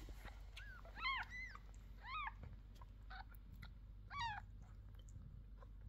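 Newborn kittens, a few days old, giving about six short high-pitched mews, each rising then falling in pitch. The loudest come about a second in and about four seconds in.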